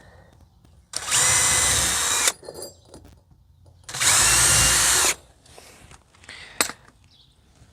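Cordless drill with a pilot bit pre-drilling mounting holes, in two short runs at a steady motor whine, followed by a single sharp click near the end.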